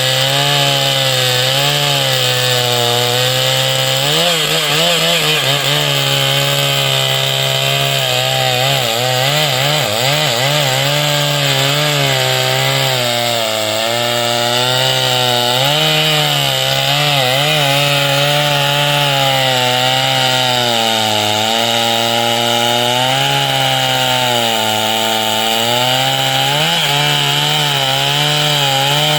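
Large two-stroke chainsaw running at high revs while cutting wood. Its engine pitch wavers and dips several times as the chain loads up in the cut and then picks up again.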